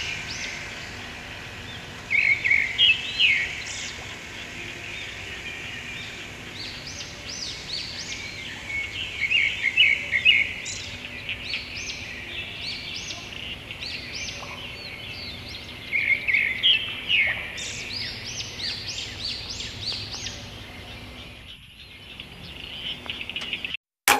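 Small birds chirping: quick, high, repeated chirps in several louder bouts over a faint steady outdoor background.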